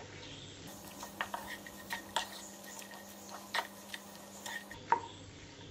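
Wooden spatula knocking and scraping against a nonstick frying pan while chopped parotta, onion and capsicum are stirred: a handful of irregular light knocks.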